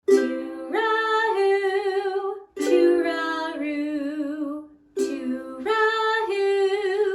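Children's theme song: three short phrases, each opening with a strummed chord, with a woman singing long held notes with vibrato over it.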